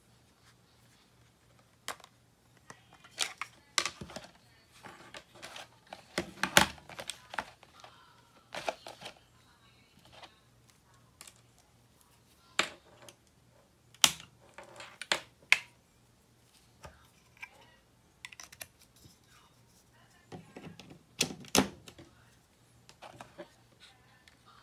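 Handling noise from a pocket digital scale and its USB charging cable: irregular clicks, taps and knocks of the scale's case and cover on a wooden tabletop, with a few sharper knocks among them.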